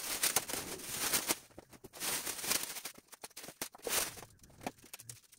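Plastic masking sheeting crinkling and rustling as it is pulled off an ATV by hand, in irregular bursts.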